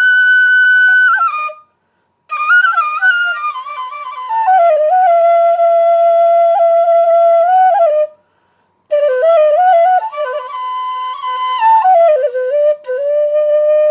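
Solo melody on a wind instrument, played in long held notes and falling stepwise phrases, with two short pauses for breath, about two seconds in and about eight seconds in.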